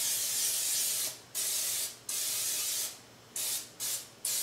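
Aerosol can of canola cooking spray hissing out in sprays: a long spray ending about a second in, two more of under a second each, then quick short squirts near the end.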